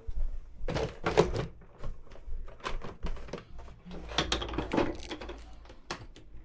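A run of irregular knocks and thunks with some clatter, as of equipment being handled and set down.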